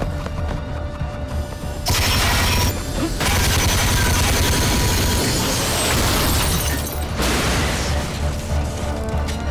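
Action-film sound mix: score music under dense gunfire, bullet impacts and shattering from a hovering police craft shooting at a car, in one short stretch about two seconds in and a longer one from about three to seven seconds in.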